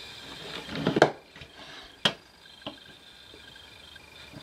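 A screwdriver and hands handling a metal avionics module and its circuit board: a few sharp clicks and taps, the loudest about a second in.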